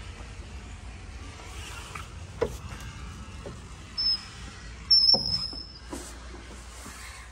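A heavy wooden door opening: a knock from the handle and latch about two and a half seconds in, then the hinges squeak high, once briefly and then longer and louder about a second later, with a thud as the door swings.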